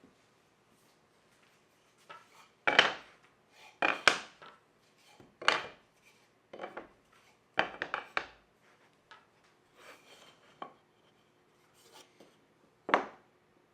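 Wooden workpieces being handled on a bench: an irregular series of sharp knocks and short scrapes, the loudest near the start and one more near the end.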